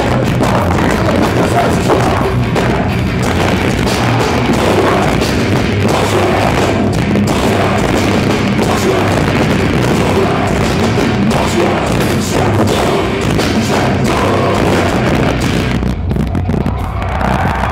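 Nu-metal band playing live, heard from the crowd: heavy distorted electric guitar, bass guitar and pounding drums. The sound is loud and steady, thinning out briefly near the end.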